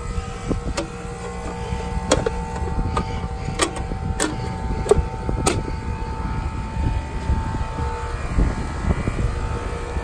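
Newly installed Carrier condensing unit running, its compressor having just struggled into a start without the hard-start kit, with a steady low hum and a couple of steady tones. The compressor may simply be tight. A few sharp clicks sound in the first half.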